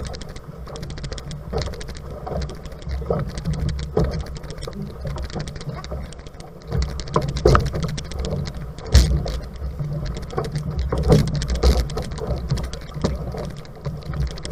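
Outrigger canoe being paddled hard through choppy water: irregular splashes of paddle blades and water slapping the hull, over a steady low rumble of wind on the camera microphone, with one louder splash about nine seconds in.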